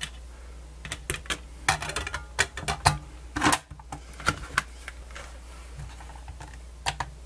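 Sharp plastic clicks and knocks from handling a Sony D-142CK Discman portable CD player: a quick flurry as the lid is shut, then a few single clicks as the player is picked up.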